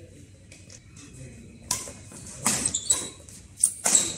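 Badminton rally: rackets striking the shuttlecock with sharp smacks, several in the second half and coming faster near the end, with short high squeaks that fit shoes on the court surface.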